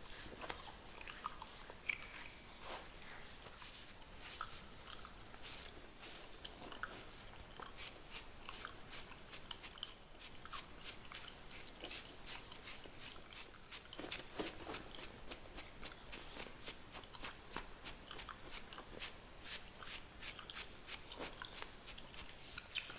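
Fingernails scratching through beard hair in short, crisp strokes. The strokes are sparse at first, then settle into a steady rhythm of about three to four a second.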